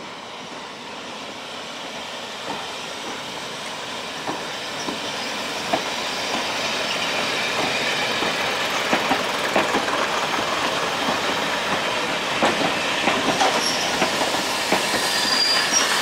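A train of diesel multiple unit carriages with a steam tank locomotive coupled behind rolling in past the platform. It grows steadily louder as it nears, with its wheels clicking over the rail joints more and more often, and a brief high squeal from the wheels near the end.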